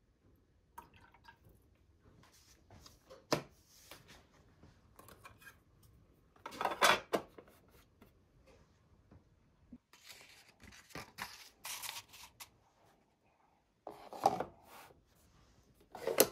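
Scattered clicks, knocks and plastic clatter from handling a recolte fully automatic coffee maker as its lid, tank and filter basket are opened, touched and set in place, louder about 7, 11 and 14 seconds in and again at the end.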